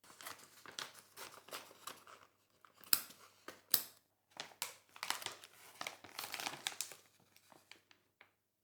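Plastic packaging crinkling and rustling as it is handled and torn open, with two sharp clicks about three and four seconds in.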